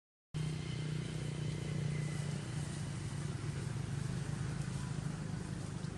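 Steady low drone of an engine running, coming in after a brief break in the sound just at the start.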